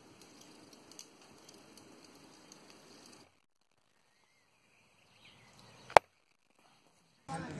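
Faint crackling with a few light ticks from glowing coals in a small stove. After a pause, one sharp, loud hammer tap on a small steel piece resting on a wooden stump.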